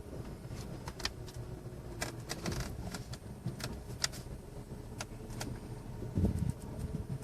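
Safari car running over the ground: a steady low engine and road rumble with frequent sharp rattles and clicks from the vehicle, and a heavier bump about six seconds in.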